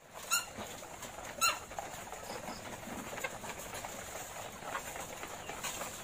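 A house full of caged laying hens clucking and calling, with two sharp high squawks close together in the first second and a half.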